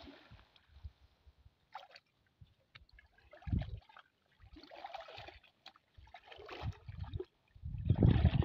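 Water sloshing in separate bursts, about every second and a half, as a person wades through thigh-deep river water hauling in a cast net; the loudest slosh comes near the end.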